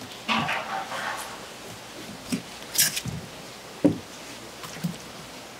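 A few scattered knocks and wet slaps as a gutted shark carcass is handled on a cutting board, the sharpest knock just under four seconds in.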